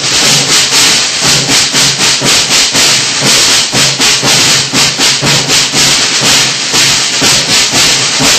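Snare drum in a music track, playing a steady beat of about four strokes a second with heavy hiss.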